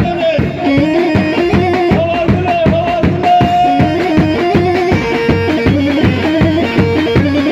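Loud amplified dance music: a wavering melody line over a fast, steady drum beat, about three to four strokes a second.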